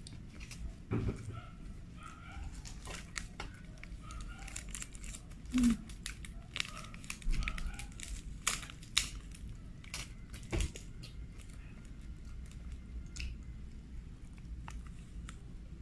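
Eating crispy Korean fried chicken close to the microphone: the skin tearing and crunching under the bite, then chewing, heard as scattered sharp crackles and mouth clicks that are busiest in the middle.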